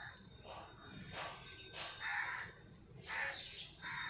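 Crows cawing in the background: a series of short, harsh caws about a second apart.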